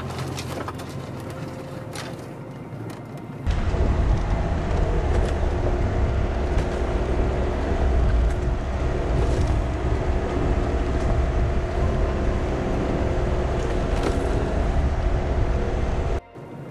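VW California camper van driving over a rough off-road track: a deep rumble with scattered knocks. It jumps much louder about three and a half seconds in and cuts off abruptly just before the end.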